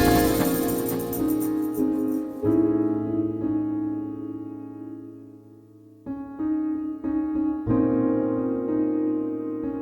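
Background music: slow piano or electric piano chords, with a new chord struck about two and a half seconds in and again near the end, and a fade to a lull about six seconds in.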